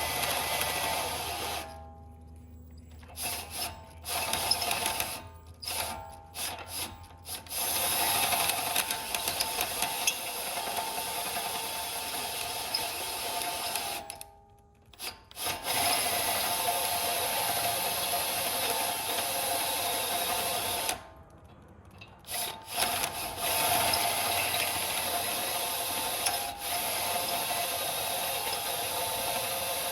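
Power drill boring out a steering knuckle's tie rod end hole to 7/8 inch, the motor running steadily with a whine. It stops three times, with a few short trigger bursts before it runs steadily again.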